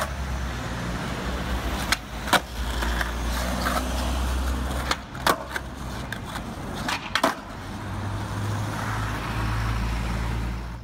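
Skateboard wheels rolling on rough street pavement, a steady low rumble, broken three times by a quick pair of sharp clacks from the board hitting the ground.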